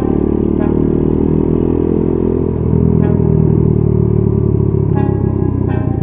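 Honda Monkey Z50J's small four-stroke single-cylinder engine running under way. Its note changes and gets a little louder about halfway through.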